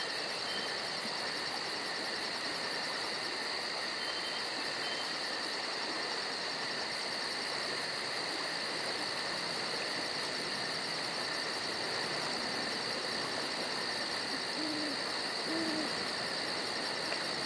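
Steady dusk chorus of calling frogs, a constant high trilling with a fast, even, higher-pitched pulsing over it that drops out for a moment about six seconds in.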